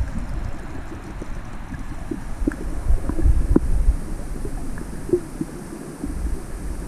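Underwater sound heard through a camera held just below the surface: a low, irregular rumble of moving water that swells and fades, with scattered faint clicks.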